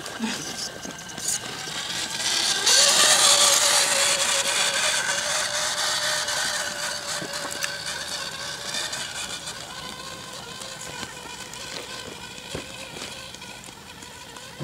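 Radio-controlled rock crawler with a Land Rover Defender body driving up a leaf-strewn dirt slope: its electric motor and gearbox whine steadily, with tyres crunching over dry leaves and soil. The sound swells about two and a half seconds in, then slowly fades as the truck climbs away.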